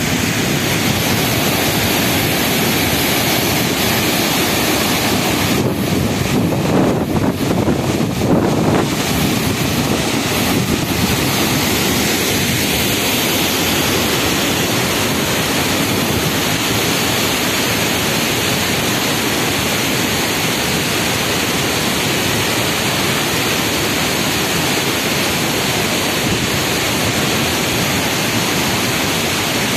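Steady, loud rush of a waterfall and a whitewater river in spate pouring over boulders, with wind on the microphone adding uneven gusts about six to nine seconds in.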